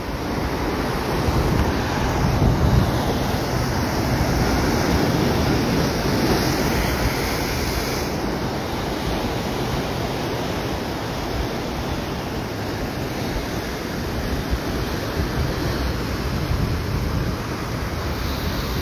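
Ocean surf breaking and washing white over coastal rock ledges, a steady rush of water with gentle swells, with wind buffeting the microphone.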